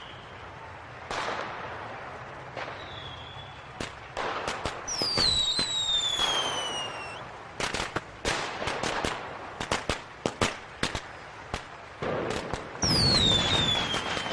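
Fireworks show: booming bursts with falling whistles, and a quick run of sharp cracks and pops in the middle.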